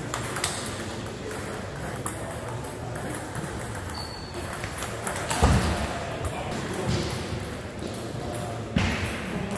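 Table tennis balls ticking off bats and tables in a sports hall, with several rallies going at once, over background voices. Two heavier thumps come about five and a half seconds in and again near the end.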